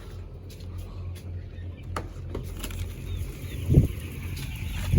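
Broiler chickens clucking and chirping over a steady low hum. A louder call comes near the end.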